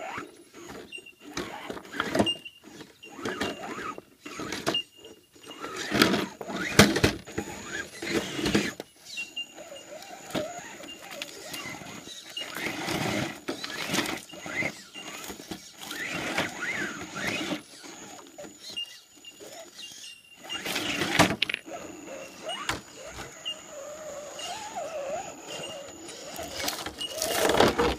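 Axial SCX10 RC rock crawler driven by a Novak Ballistic 18.5-turn brushless motor, its motor and gears whining as it crawls over granite boulders. Frequent knocks, scrapes and clatters as its tyres, chassis and hard body strike the rock.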